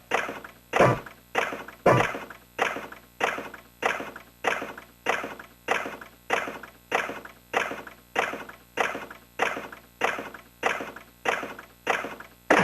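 Retro Sankyo Fever Big Chime pachinko machine sounding a steady run of short strikes, about one and a half a second, each ringing briefly and fading.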